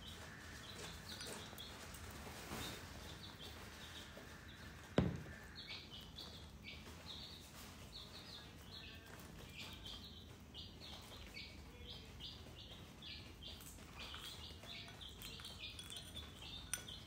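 Faint, rapid high chirping of birds, scattered throughout and busier in the second half, with a single sharp knock about five seconds in.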